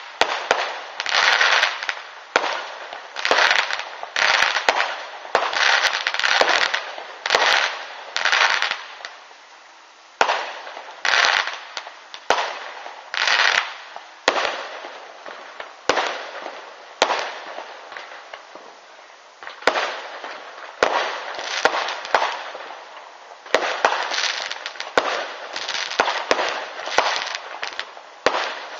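Fireworks display: aerial shells bursting one after another, about one bang a second, each trailing off, with fewer bangs in the middle stretch.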